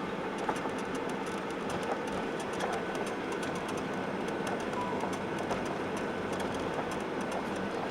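Boeing 737-800 cabin noise on the ground after landing: a steady hum with frequent small clicks and rattles throughout.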